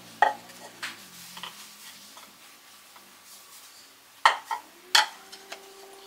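Handling knocks as a wooden pole and a round white board are moved and fitted together: several separate sharp taps and clacks, the loudest a little over four seconds in and again at about five seconds.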